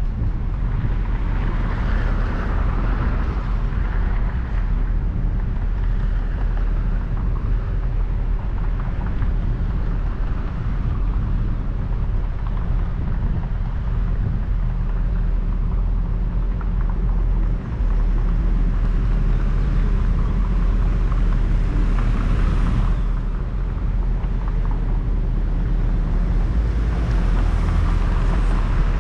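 Street traffic heard from a car-mounted camera at a standstill: a steady low rumble with wind on the microphone. Passing cars swell and fade a few times, one of them near the end.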